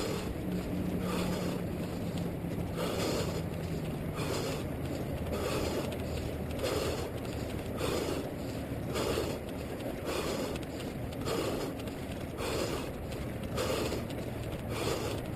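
A runner's rhythmic breathing, about one breath a second, heard right at a head-mounted GoPro Hero 2, with a faint low hum under it.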